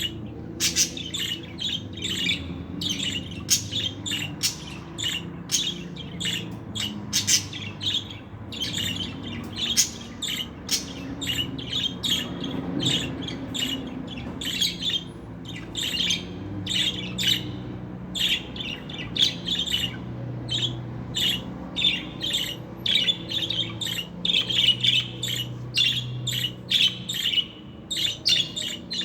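Budgerigar chirping and chattering nonstop, a quick run of short, sharp chirps and squawks, over a faint low steady hum.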